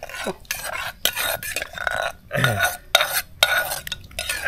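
A metal spoon scraping and stirring inside a clay mortar, working loose the leftover pounded curry paste, in a series of short rasping strokes with brief pauses between them.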